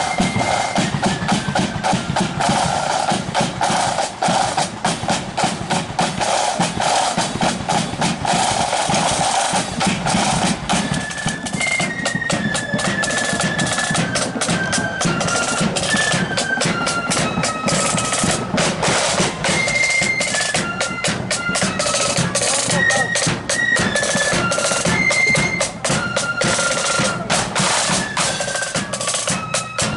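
Marching flute band playing: a high melody of flutes moving note by note over rapid, dense snare drumming and bass drum.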